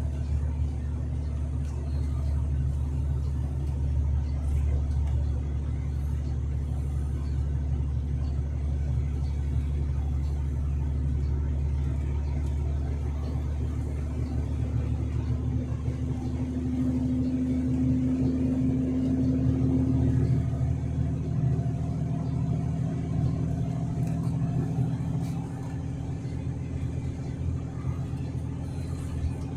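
Truck engine and road noise as heard from inside the cab while driving: a steady low drone, with an engine hum that swells for a few seconds past the middle.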